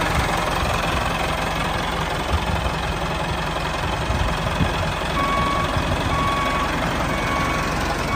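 Tractor engine running steadily with a low rumble. From about five seconds in, a reversing alarm beeps about once a second, four times.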